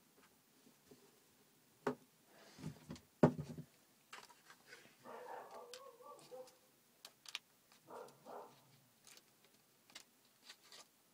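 Clicks and knocks of the homemade cardboard pistol being handled and its parts fitted or taken apart, with rubbing of cardboard between them; the sharpest knock comes about three seconds in.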